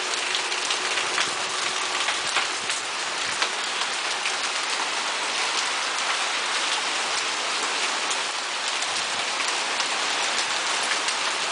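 Hail and rain pelting down steadily, a dense hiss dotted with many sharp ticks of hailstones striking surfaces.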